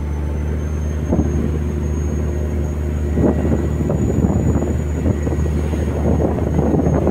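A fishing boat's engine runs steadily as a low drone, mixed with wind and water noise on deck. The noise grows rougher and more irregular from about three seconds in.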